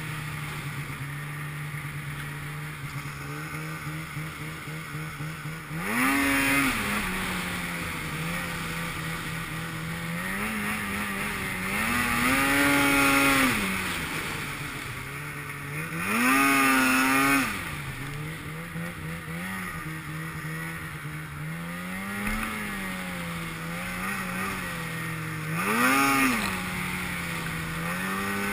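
Snowmobile engine running under throttle through deep snow, holding a steady drone and revving up sharply again and again. The longest and loudest revs come about a third and about halfway in, with another short one near the end.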